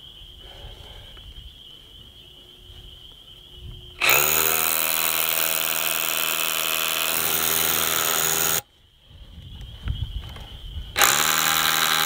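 Makita 18V sub-compact SDS-Plus rotary hammer in hammer mode, driving a 1/2-inch Bosch Bulldog Xtreme carbide-tipped bit into a poured concrete foundation wall. About four seconds in it spins up and hammers steadily for about four and a half seconds, then stops sharply. It starts again about a second before the end.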